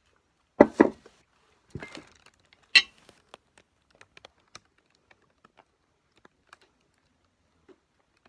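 A few loud knocks and clatters within the first three seconds, the sharpest near three seconds in, followed by sparse faint clicks.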